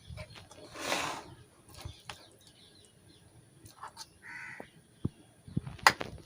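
A crow cawing once in the background, with scattered light clicks and knocks from hands and utensils at work in a kitchen, the sharpest near the end. A brief rustling hiss comes about a second in.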